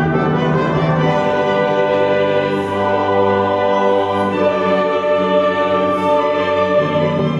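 Orchestral background music with slow, held chords that change every second or two.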